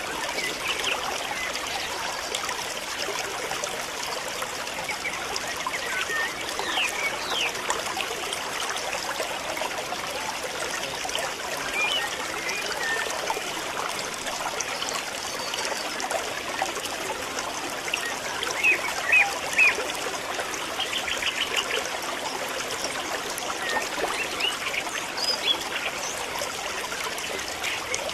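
Outdoor ambience: a steady, even hiss with groups of short high chirps several times, the loudest cluster about two-thirds of the way through.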